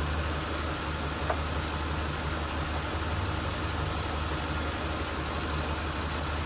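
Car engine idling steadily while its alternator charges the battery, with one faint click about a second in.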